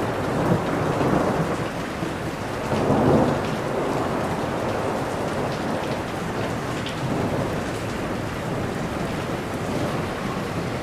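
Steady heavy rain falling on a surface, with rolling thunder rumbling beneath it; the loudest roll swells about three seconds in, with softer rumbles near one and seven seconds.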